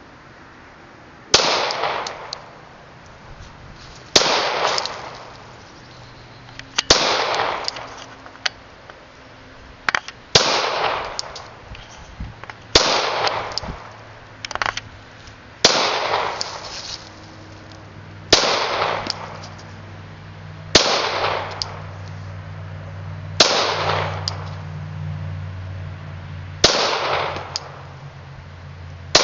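Ruger SR9 9mm pistol fired in slow, aimed single shots, about ten spaced two and a half to three seconds apart. Each shot is a sharp crack followed by a fading echo.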